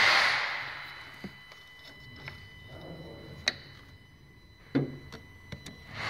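A loud rushing hiss in an engine bay dies away, leaving a faint steady high whine and a few light clicks and taps. The hiss comes back abruptly near the end.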